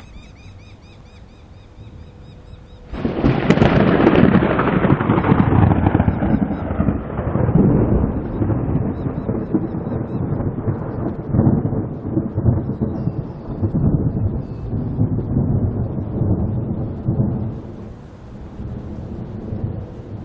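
Thunder from a tropical storm. About three seconds in it breaks in suddenly and loudly, then rolls on as a long low rumble with several swells, dying away near the end. Before it there is a faint high chirping.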